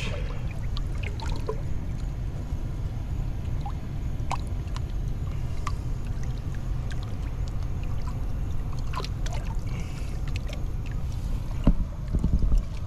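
Water sloshing and lapping around shoreline rocks as a large snook is held in the water to revive it, with small splashes and drips over a steady low rumble. A couple of louder splashes come near the end.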